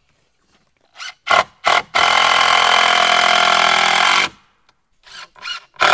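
Cordless drill driving a screw into a wooden board: three quick trigger blips, then about two seconds of steady running that stops, then more short blips near the end.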